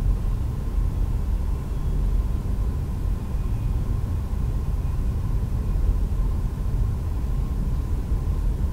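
Steady low background rumble of room noise, with a faint steady high hum over it.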